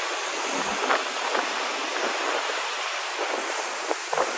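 Steady rush of wind and churning wake water on the open deck of a moving cruise boat, with a couple of low thumps of wind buffeting the microphone.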